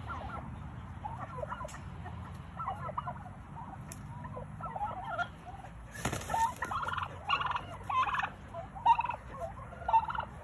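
Domestic turkeys calling in a flock: many short calls throughout, louder and closer together in the second half. A brief burst of noise comes about six seconds in.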